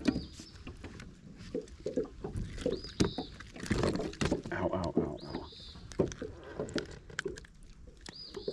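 Scattered knocks, clicks and rattles of a just-caught smallmouth bass and fishing tackle being handled against an aluminium boat hull. A short high-pitched call comes back about every two and a half seconds.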